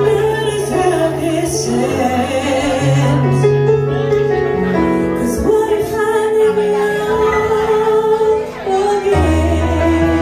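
A woman singing live into a microphone over a karaoke backing track of a slow ballad, with long held notes over sustained low chords that change every couple of seconds.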